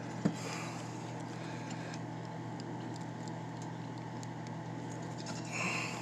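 Wire cutters clicking and scraping faintly on the refrigerator's white wires without cutting through them, a small snap shortly after the start and a brief scrape near the end, over a steady low hum.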